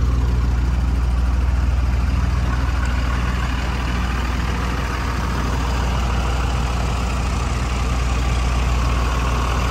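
The Freightliner MT-55's 5.9-litre Cummins inline-six turbo-diesel idling steadily, a low even rumble.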